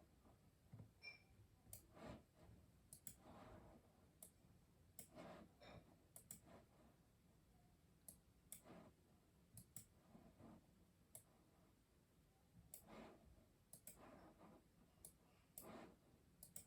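Faint keystrokes on a custom mechanical keyboard: irregular, unhurried clicks, roughly one or two a second, with short pauses between runs.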